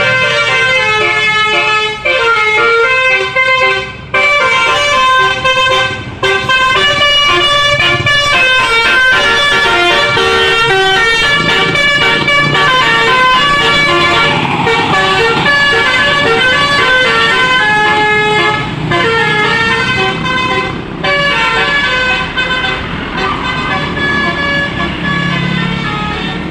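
A Sindu Rama bus's 'telolet' multi-tone air horn playing a tune in quick runs of stepped notes, with only brief breaks. It is a little quieter in the last few seconds.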